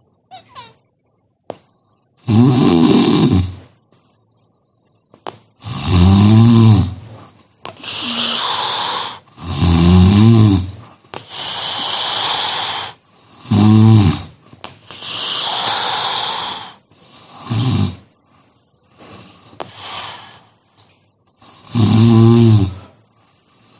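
A person snoring heavily in a steady breathing rhythm. Loud pitched snores of about a second each alternate with softer breathy breaths between them.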